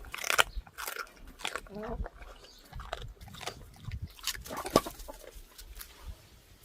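An animal biting into and chewing watermelon: several crunchy bites with wet chewing between them.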